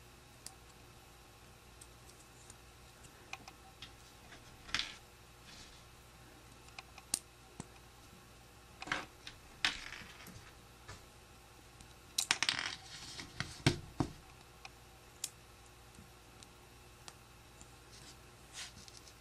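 Small plastic Lego pieces being handled and pressed together: scattered sharp clicks and short scrapes, with a denser cluster of louder clicks about two-thirds of the way through.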